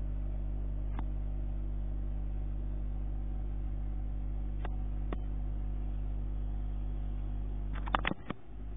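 HP DeskJet Ink Advantage 4535 all-in-one's scanner motor humming steadily as it scans the printed alignment page, with a few light clicks. A cluster of clicks comes near the end, and the hum then drops in level.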